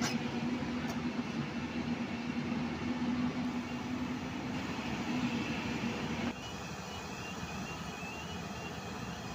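Hyundai 220LC-7 excavator's diesel engine running steadily with a steady hum. About six seconds in, the sound cuts abruptly to a quieter machine drone with a faint, quick, high repeating chirp.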